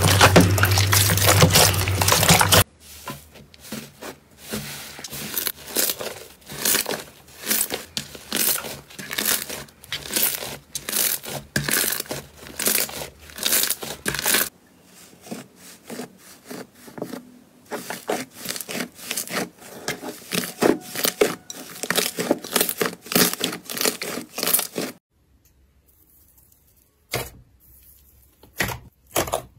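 Hands squeezing and kneading slime: runs of wet crackling and popping, several pops a second, in bursts. The first couple of seconds are a denser, continuous sloshing with a low hum, as slime is worked in a basin of water with water beads. The last few seconds are mostly quiet with a few sharp pops as a hand presses into thick yellow slime.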